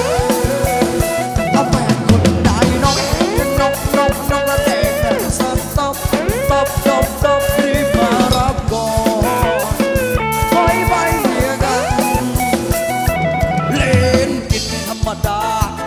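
Live Thai ramwong dance-band music taken straight from the mixing desk: a band with drums playing a steady, upbeat dance rhythm.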